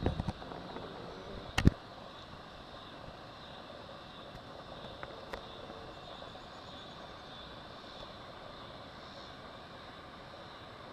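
Dull hoofbeats of a cantering horse on turf at the start, fading as it moves away, then one sharp knock about a second and a half in. After that, only steady outdoor background noise.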